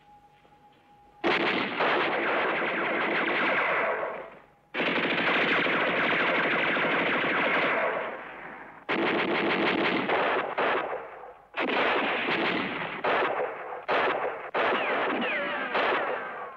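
Automatic gunfire in long rapid bursts of two to three seconds each, starting about a second in, with short gaps between them. Near the end the bursts get shorter and are mixed with a few falling whines.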